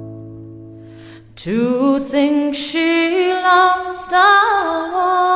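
Slow folk ballad: a low held note fades away, then about a second and a half in a female voice slides up into a long wordless held note, with a few small ornamental turns.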